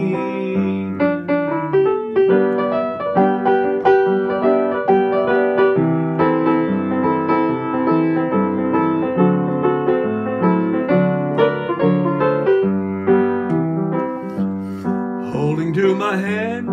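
Solo gospel piano playing an instrumental break between sung lines, with a steady run of chords and melody notes. A man's singing voice comes back in near the end.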